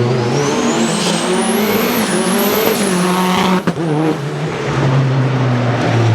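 Modified Lancia Delta HF Integrale's turbocharged four-cylinder engine accelerating hard, with a high whine climbing over the first two seconds and then holding. About three and a half seconds in the sound briefly cuts out, after which the engine runs lower and steadier.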